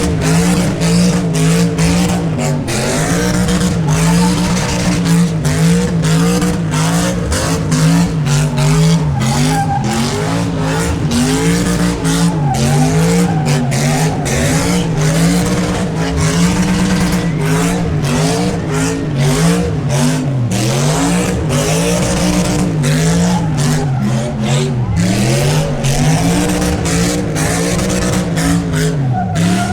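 A V8 car doing a burnout, its engine held at high revs with the pitch wavering up and down about once a second as the throttle is worked, over the steady hiss and squeal of spinning tyres.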